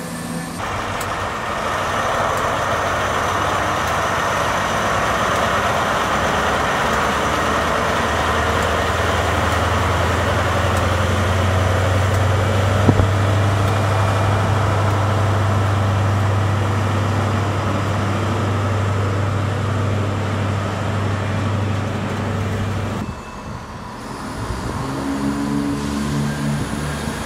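A Class 43 HST power car's diesel engine working under power as the train pulls away: a steady, deep drone that grows stronger about eight seconds in. Near the end it gives way to the engine sound of a Class 170 Turbostar diesel multiple unit.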